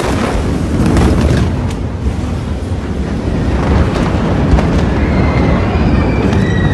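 The rumble of the huge Beirut port explosion just after its blast wave hits: a loud, sustained low roar, with several sharp cracks in the first two seconds.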